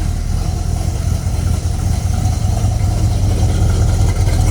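1970 Pontiac GTO's Ram Air III 455 V8 idling steadily.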